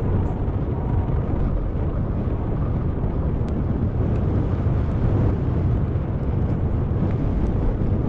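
Steady low wind rumble on a camera microphone with the tyres running over a dirt trail as a mountain bike is ridden, with a few faint ticks.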